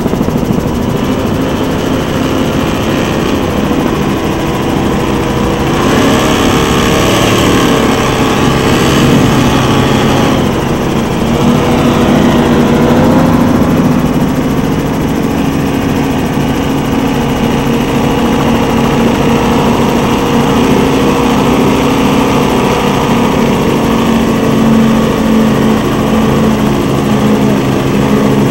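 Donzi performance powerboat engines running hard at speed, a steady, loud drone. About six seconds in, the pitch rises and falls for several seconds, then settles back to a steady note.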